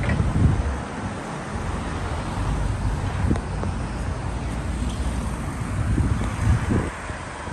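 Outdoor street noise: wind buffeting the microphone in uneven gusts over road traffic.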